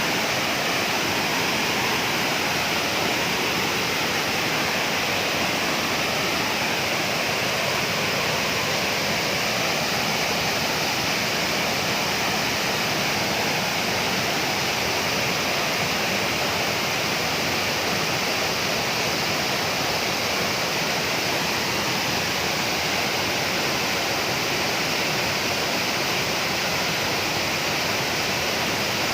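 Waterfall rushing and splashing steadily, a loud, even wash of falling water.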